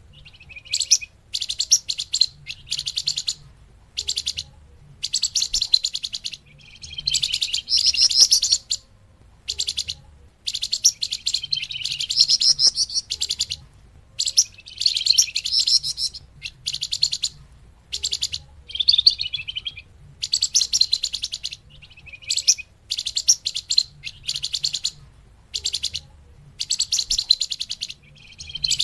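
Flamboyan bird singing: short bursts of rapid, high-pitched chattering twitter, repeated over and over with brief pauses between them, as used in a bird-lure (pikat) recording.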